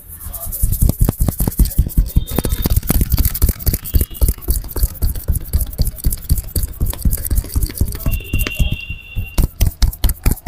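Hands slapping and tapping a head in quick, uneven strokes during a barber's head massage, a dense run of sharp slaps several times a second.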